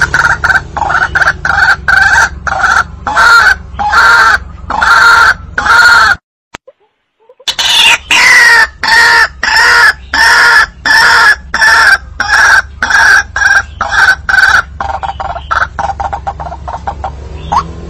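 White-breasted waterhen (ruak-ruak) calling, a loud note repeated about twice a second. The calling cuts off suddenly for about a second around six seconds in, then resumes with a higher note sliding down before the steady repeats go on.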